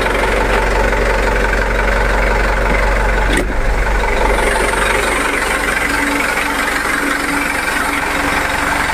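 Mitsubishi Canter dump truck's diesel engine idling steadily while the raised tipper bed is lowered. A sharp click comes about three and a half seconds in, and a faint high hiss joins soon after.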